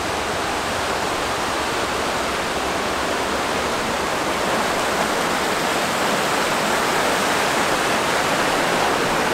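Mountain creek and waterfall rushing over rocks: a steady, unbroken rush of water that grows a little louder toward the end.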